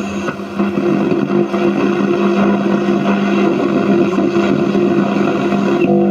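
Sony CFM-S1 radio cassette recorder on its shortwave band putting out loud, steady static with a constant hum and no clear station: weak daytime shortwave reception.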